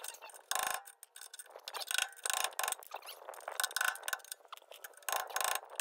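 A flat-blade screwdriver prying at the rusty clip on a parking-brake cable end, in irregular metal-on-metal scrapes and clicks.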